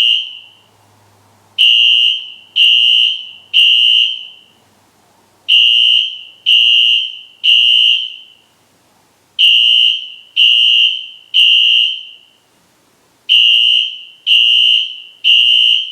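Wheelock fire alarm horn sounding a loud, high-pitched tone in groups of three short blasts with a pause between groups: the temporal-3 evacuation pattern.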